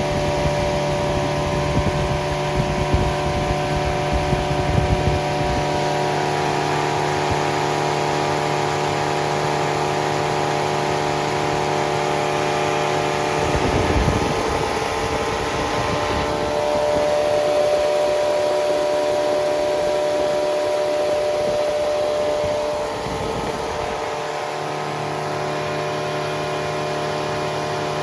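Freshly rebuilt Triumph Spitfire 1500 inline four-cylinder engine running unmuffled on the test stand, held at a steady raised speed, then settling down to a lower, quieter note near the end.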